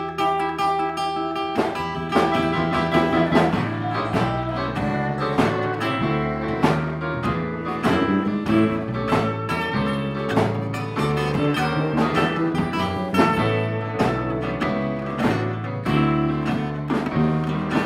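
Live blues band playing an instrumental passage: a steel-string acoustic guitar picking a lead line over electric bass and drums keeping a steady beat.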